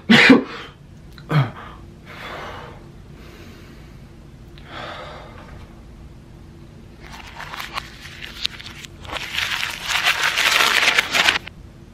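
A few short breathy sounds and slow exhales. From about seven seconds in, a small wrapper held at the mouth crinkles and tears with many small crackles, loudest near the end.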